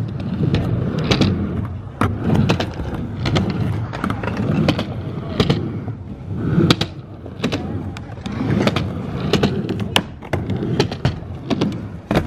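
Skateboard riding a quarter-pipe ramp: a low rumble of the wheels rolling, broken by many sharp clacks and thuds of the board on the ramp surface and its metal coping.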